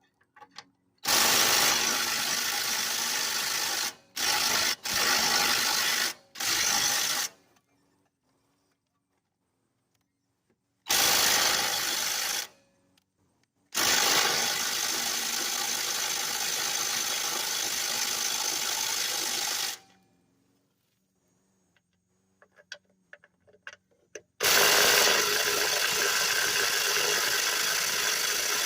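Cordless power drill on a fresh battery, run in repeated bursts of one to six seconds that start and stop sharply, trying to break a stuck fastener free.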